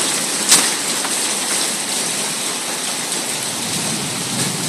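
Steady, dense hiss of a heavy storm of rain and hail coming down, with a single sharp tap about half a second in.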